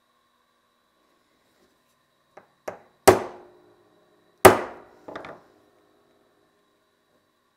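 Two sharp hammer blows on a hand-held punch set on a brass gear, marking hole centres. They come about a second and a half apart, each with a short metallic ring. A couple of light taps come before them, and a brief softer clatter follows.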